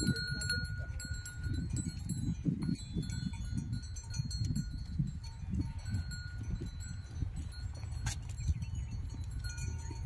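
A herd of goats browsing, with faint bell-like ringing tones coming and going over a steady low rumble, and a single sharp click about eight seconds in.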